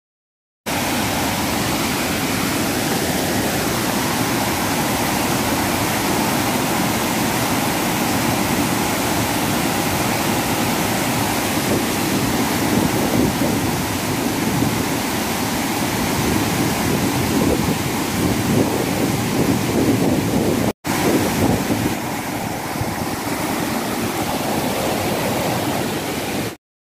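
Hillside stream in flash flood: a torrent of churning water rushing loudly and steadily, broken off for an instant about three-quarters of the way through.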